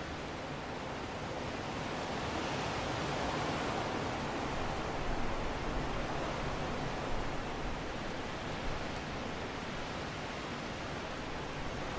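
Steady rushing wind that swells into a stronger gust a few seconds in, then eases back to an even blow.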